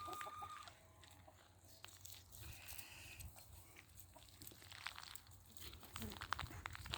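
Faint chickens in an enclosure: scattered small clicks and crunches, with a short high call about two and a half seconds in.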